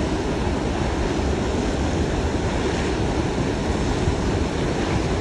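Steady rush of fast, churning water, with splashing from people wading and playing in it.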